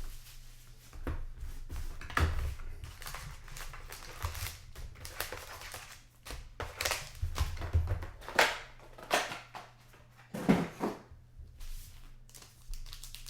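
Hockey card box and its wrapping being handled and opened: irregular crinkling, rustling and light taps of cardboard and plastic.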